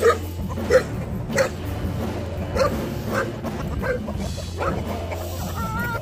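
A dog barking repeatedly, about seven short barks spread across a few seconds, over background music.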